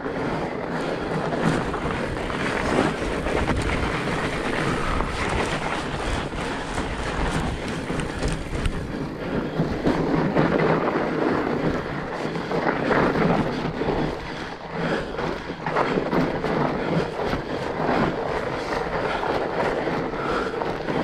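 Fat bike being ridden on a trail: a continuous rough rumble from the wide tyres and the bike, with frequent knocks and rattles and wind on the microphone.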